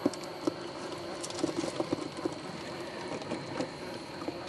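Traxxas TRX-4 RC rock crawler driving slowly over rock: a steady hum from its electric motor and gears, with irregular clicks and knocks from its tyres and chassis on the stones.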